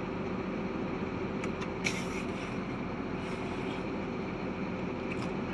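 Hino Ranger SG 280 TH's J08E-WD six-cylinder common-rail diesel idling steadily, heard from inside the closed cab. A brief click comes about two seconds in.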